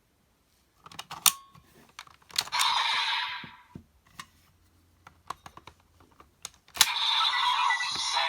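Sharp plastic clicks of a Kamen Rider Geats DX Desire Driver toy belt as raise buckles are snapped in and worked, with two short bursts of electronic sound effects from the toy's small speaker.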